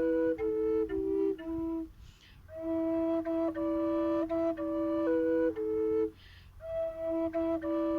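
Drone flute (Flöten des Herzens "Panther" drone flute in E minor) playing a slow, gentle melody over a steady held drone note. The playing stops briefly for a breath about two seconds in and again about six seconds in.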